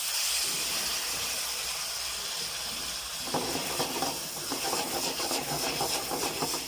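Hot pan of chicken chilli sauce sizzling and hissing steadily as cornflour slurry is added to thicken it into a glaze, with the sizzle turning more crackly from about three seconds in.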